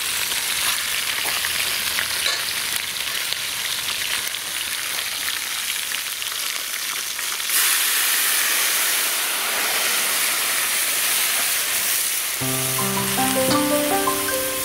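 Hen pieces sizzling as they brown in a hot aluminium pot over a wood fire. About halfway through, water is poured into the pot, and the sound jumps to a louder hissing rush of water and steam. Music with distinct notes comes in near the end.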